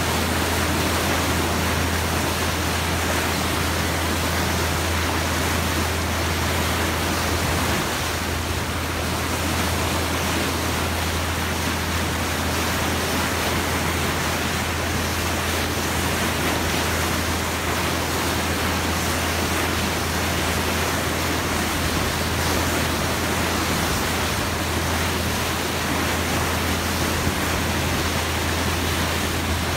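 Boat's bow wave rushing and splashing as the hull cuts through the water: a steady, even wash, with a steady low hum underneath.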